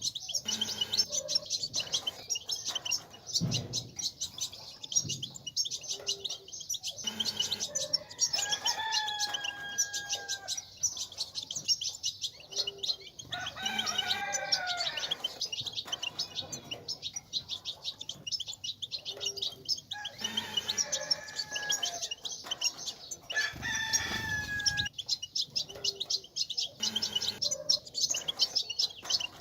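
European goldfinches twittering in a fast, continuous high chatter, the 'batbata' used to stimulate caged males to sing. Another bird's longer, lower call, fitting a rooster crowing, sounds about four times over it.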